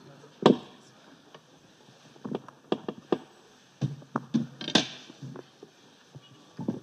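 Microphone handling noise: irregular knocks and thumps picked up as the podium's gooseneck microphones are bent and repositioned.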